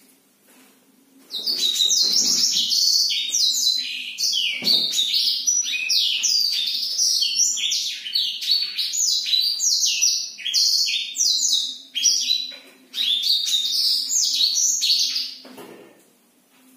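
Black-throated canary (blackthroat) singing a long, unbroken rapid song of high, quick notes. It starts about a second in, pauses briefly near the end, then sings again and stops shortly before the end.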